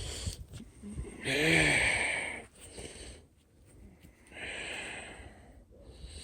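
A man sighing twice, the first sigh with a wavering hum in it, the second a breathy exhale a few seconds later.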